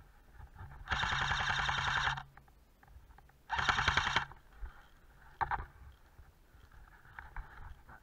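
Airsoft rifle firing two full-auto bursts of rapid clicking shots, the first about a second in and lasting just over a second, the second shorter, a couple of seconds later. A single sharp crack follows shortly after.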